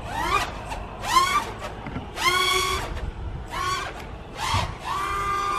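FPV racing quadcopter's brushless motors whining in repeated bursts as the throttle is punched, the pitch sweeping upward each time and sometimes holding before dropping away, about half a dozen times.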